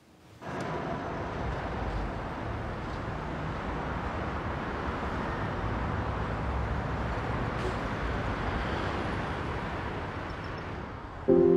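Steady city street traffic noise, an even hum of cars, starting about half a second in. Right at the end a saxophone begins to play.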